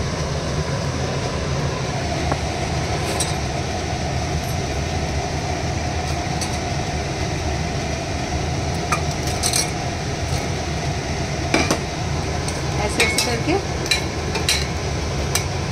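A steel ladle clinks against a steel pot a few times as fried urad dal vadas are lowered into sugar syrup. A steady low hum runs underneath.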